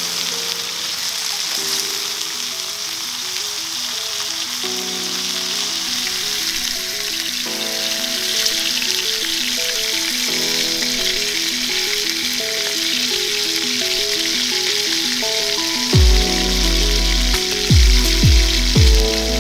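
Background music with a stepping melody over a steady sizzling hiss. About three quarters of the way through, deep falling bass hits come in, several in quick succession near the end, and these are the loudest sounds.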